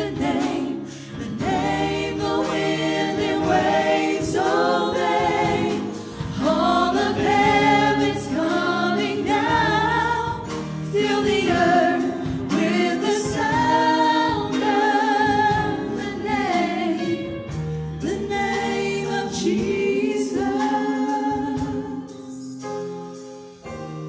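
A small worship praise team of men's and women's voices singing a gospel song in harmony over keyboard accompaniment. Near the end the voices stop and the keyboard holds on alone.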